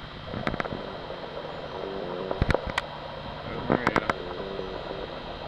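Minivan driving slowly up a paved driveway: a steady low hum, with several sharp clicks and a few short pitched calls about two and four seconds in.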